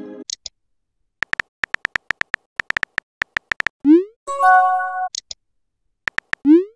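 Chat-app sound effects: a quick run of keyboard tap clicks, about five a second, as a message is typed, then a short rising pop as it is sent. A brief synthesized chime chord follows, and a few more taps and another rising pop come near the end.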